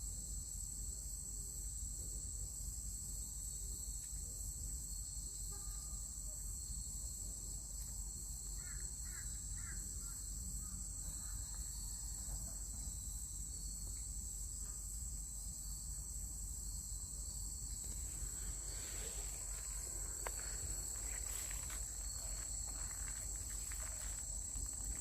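Insects chirring steadily at a high pitch. Light rustling and small clicks come in over the last several seconds.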